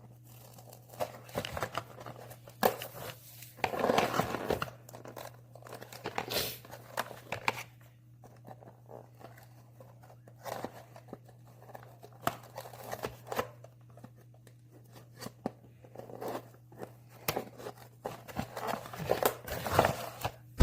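Packaging and tape being torn and crinkled by hand in scattered, irregular bursts, over a steady low hum. A sharp knock comes at the very end.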